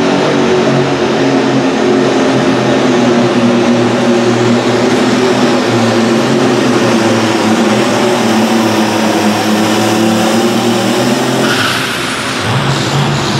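Pulling tractor's engine running flat out under load as it drags a weight-transfer sled, holding a steady pitch, then throttling off about twelve seconds in as the tractor stops at the end of its pull.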